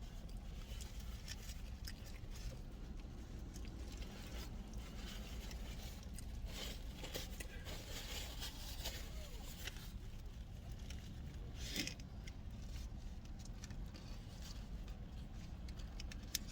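Eating sounds: chewing with scattered rustles, crinkles and small clicks of food wrappers and packaging, a little louder just before the end, over a steady low hum inside the car.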